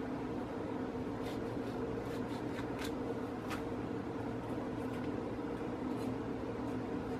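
A kitchen knife cutting the seeds out of a peeled cucumber on a wooden cutting board, a few faint soft strokes over a steady low hum.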